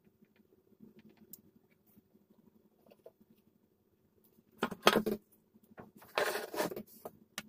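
Plastic control knobs being pushed onto an amplifier's potentiometer shafts. Near-quiet handling with faint ticks at first, then two short bursts of clicking and rubbing about halfway through, and a sharp click near the end.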